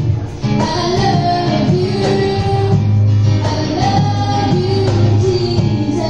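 Women singing a song into microphones with acoustic guitar accompaniment, holding long notes.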